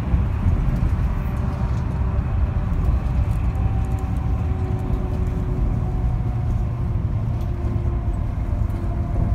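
Steady low road rumble of a vehicle driving at speed, heard from inside the cabin, with a faint steady hum above it.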